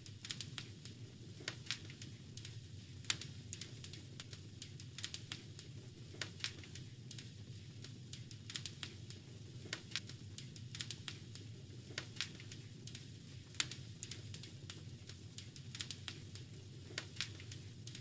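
Wood fire crackling, with frequent irregular sharp pops over a steady low rumble.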